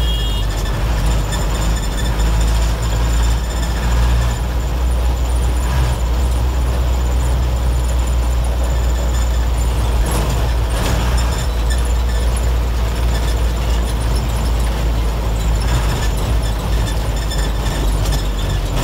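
The 1990s Mitsubishi diesel engine of an old medium bus is running hard at road speed, heard from inside the cabin. It makes a steady low drone with road noise and a few short rattles or knocks.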